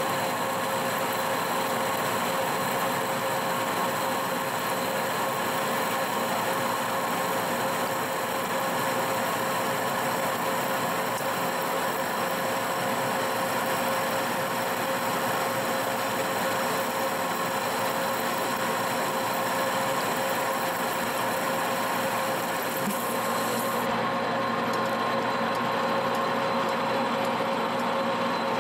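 Monarch engine lathe running under a heavy roughing cut on a steel bar, the gear drive's steady hum mixed with the hiss of the tool peeling off chips. Near the end the high hiss drops off as the tool runs out of the cut, while the lathe keeps running.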